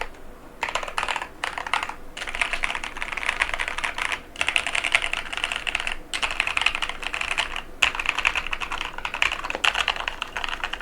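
Fast typing on a mechanical keyboard with Durock White Lotus linear switches and PBT keycaps: dense runs of keystroke clacks broken by short pauses.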